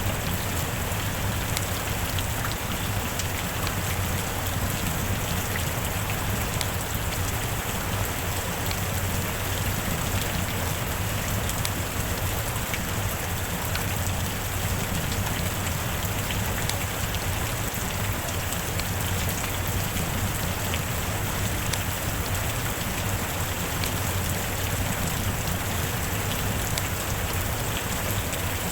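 Steady heavy rain falling on a roof, an even hiss dotted with the ticks of single drops striking.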